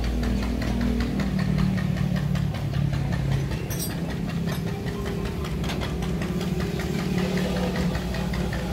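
Dump truck's diesel engine running steadily, with a rhythmic diesel clatter over its low drone.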